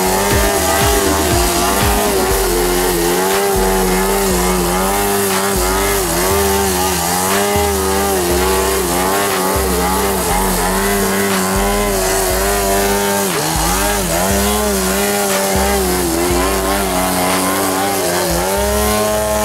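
Engine of a large radio-controlled Sukhoi 29S aerobatic model holding the plane in a nose-up hover, running steadily with its pitch wavering as the throttle is worked. A music track with a stepping bass line plays over it.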